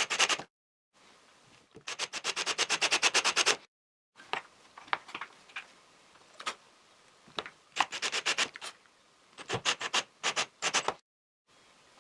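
A drill bit worked by hand into the end grain of a pine dowel, cutting a shallow pilot hole: bursts of rapid rasping strokes, about ten a second, with scattered clicks and knocks between them.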